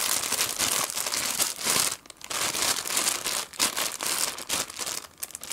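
Clear plastic bag crinkling as a coiled USB cable is handled inside it, in irregular bursts with brief pauses.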